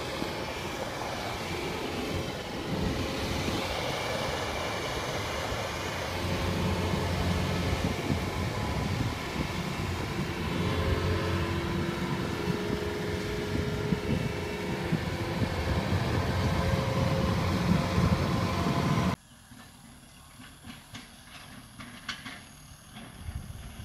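Kubota crawler combine harvester running, a loud steady engine and machinery drone. About 19 s in it cuts to a much quieter distant tractor engine with faint clicks.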